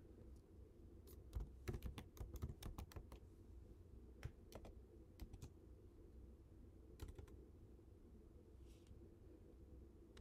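Computer keyboard typing in a few short bursts of keystrokes with pauses between, the clicks standing out over a faint steady low hum.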